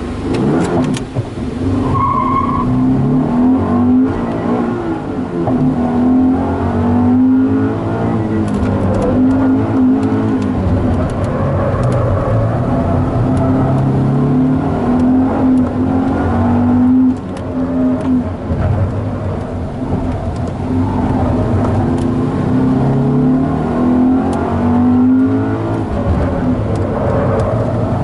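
Subaru BRZ's 2.0-litre flat-four engine, with stock intake and exhaust, revving up and falling back again and again as the car is driven hard, with a brief drop in the engine note about two-thirds of the way through.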